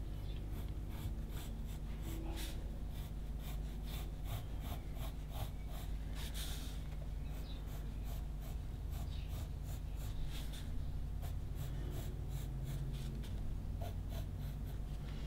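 Mechanical pencil graphite scratching on paper in many short repeated strokes, going back over a drawn outline to darken it.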